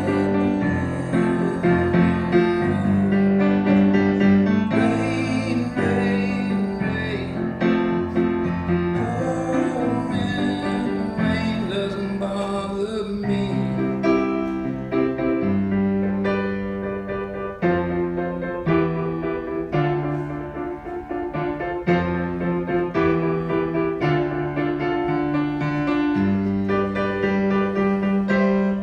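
Live band music in an instrumental passage, with piano or keyboard prominent over sustained chords.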